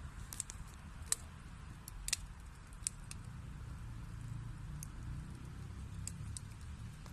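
Wood fire burning in a fireplace: a steady low rumble of flames with sharp, irregular crackles and pops from the burning wood, the loudest pops about one and two seconds in.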